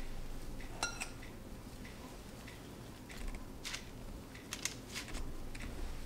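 Faint clinks and scrapes of two metal spoons against a glass mixing bowl and each other while scooping biscuit dough, with one brief ringing clink about a second in.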